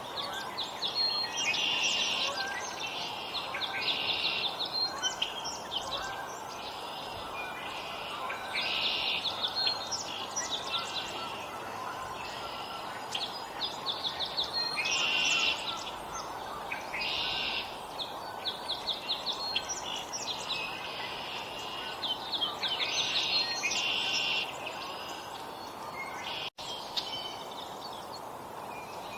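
Small songbirds at a feeder calling and chirping over and over in short bursts, over a steady background hiss of outdoor noise; near the end the sound cuts out for an instant.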